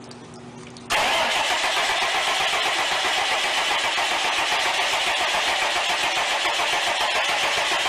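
Cummins marine diesel engine catching about a second in and then running steadily and loudly. Before it starts there is only a faint steady hum.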